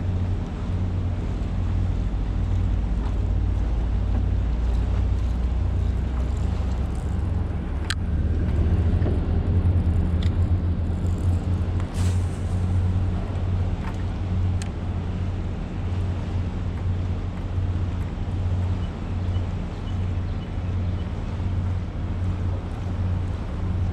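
A boat motor running steadily with a low, even hum, with a few sharp clicks or taps over it.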